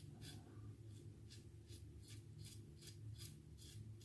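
Faint, quick scratchy strokes against the skin of the face, about three a second.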